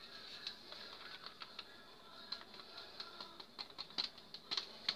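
Purple plastic hand sieve being shaken and tapped over a plastic bowl as flour and baking powder are sifted, giving faint, irregular light ticks and taps, a little louder around four seconds in.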